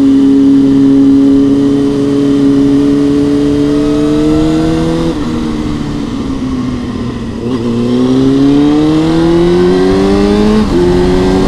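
2003 Honda CB600F Hornet's inline-four engine through a Mivv X-cone exhaust, revs climbing steadily under throttle. About five seconds in the revs fall away as the throttle closes, then climb again, with a sudden drop near the end as it shifts up.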